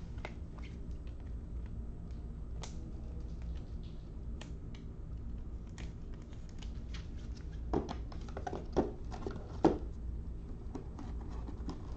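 Scattered light clicks and taps over a steady low hum, with a few louder clicks near the end.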